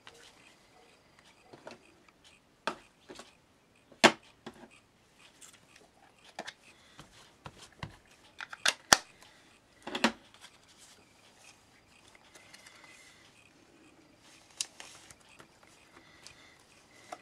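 Irregular sharp taps and clicks of plastic ink pads being dabbed onto a rubber stamp and the stamp pressed down on a tabletop, about a dozen in all, the loudest about four, nine and ten seconds in.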